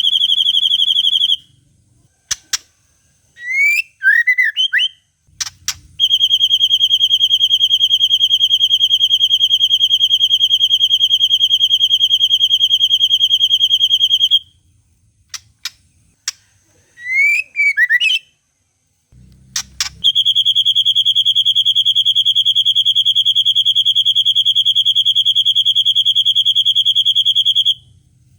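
White-rumped shama (murai batu) song: two long, steady, high trills of about eight seconds each, rapidly pulsing, in the style of the long cililin trill, separated by short sharp notes and quick rising and falling chirps.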